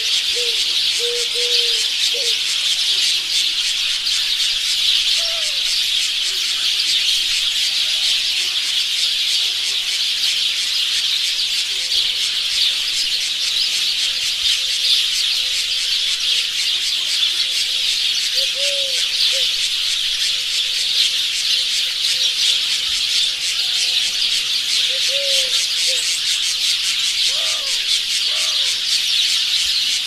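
Jungle ambience: a dense, steady, high-pitched background chorus, with scattered short low bird calls and a few rising calls near the end.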